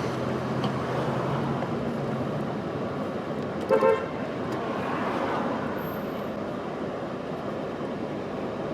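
A car horn tooting twice in quick succession, short and loud, over steady street traffic noise.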